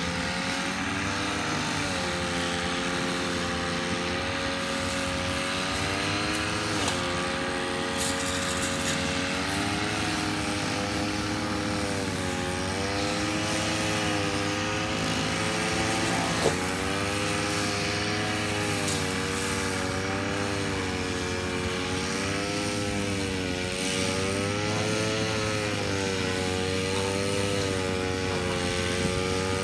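Backpack-mounted two-stroke brush cutter running while cutting grass. Its engine pitch keeps rising and dipping every couple of seconds as the cutting head is swung through the grass.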